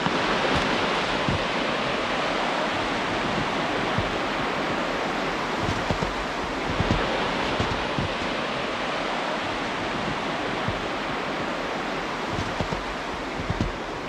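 Steady rush of river water flowing, with a few short crunching footsteps in snow near the end.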